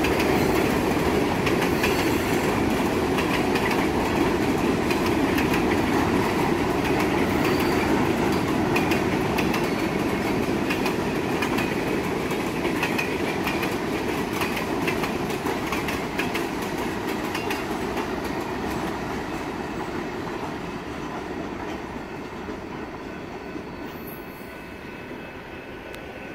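Freight cars rolling steadily past on the rails, their wheels clattering over the track joints. The sound fades from about two-thirds of the way through as the end of the train goes by.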